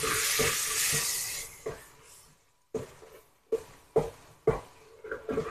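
Masala powders frying in an aluminium pressure cooker: a sizzling hiss for about the first second and a half, then a wooden spatula knocking and scraping against the pot, roughly once or twice a second, as the spices are stirred to cook off their raw smell.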